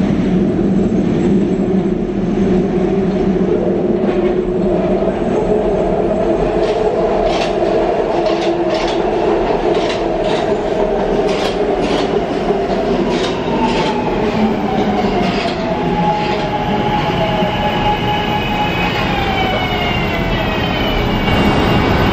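SEPTA Market-Frankford Line M4 subway train running into an elevated station: a steady rumble, with the wheels clicking sharply over rail joints a little past the middle. After that the propulsion whine falls in pitch twice as the train slows.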